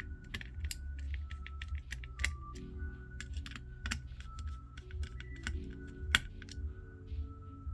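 Irregular small clicks and ticks of a screwdriver working the heatsink screws on a graphics card, over faint background music.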